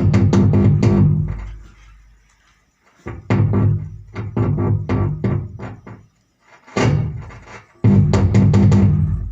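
Music with a heavy bass line played loud through the speaker of a repaired Ahuja SSA 250 amplifier from its Aux 1 input. It comes in three stretches with short silent gaps between them, and it plays clean with no crackle.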